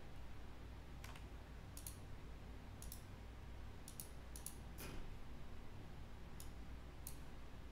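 Faint, irregular sharp clicks, about ten of them spread unevenly with a few in quick pairs, over a low steady hum.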